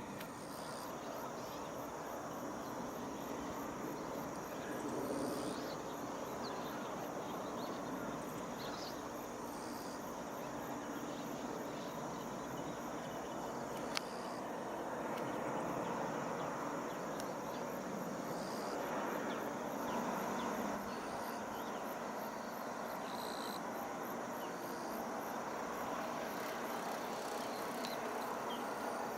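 Crickets and other autumn grassland insects chirring steadily in high, pulsing trills, over a broad, steady rushing noise. A single sharp click about halfway through.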